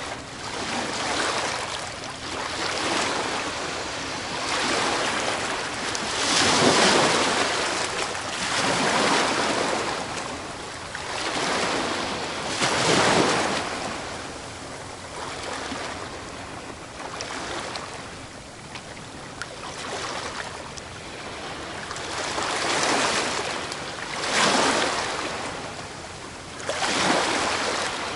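Ocean waves breaking on a beach: a continuous wash of surf that swells and falls back, with a larger wave crashing every few seconds, the biggest about six and thirteen seconds in.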